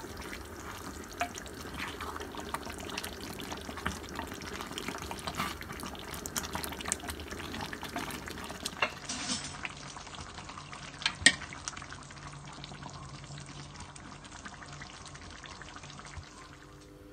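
Thick tomato sauce with meatballs simmering in an enamelled pot, sizzling and spattering with many small pops and clicks. The sound changes and eases a little about nine seconds in, and a single sharp click about eleven seconds in is the loudest.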